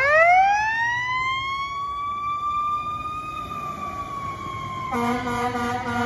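Fire engine siren winding up from low to a high wail over about two seconds, then holding steady. About five seconds in, a steady, deeper horn sound with several tones at once cuts in.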